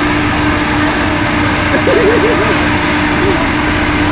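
Drilling rig machinery running: a loud, steady engine din with a constant hum, and a brief wavering tone about two seconds in.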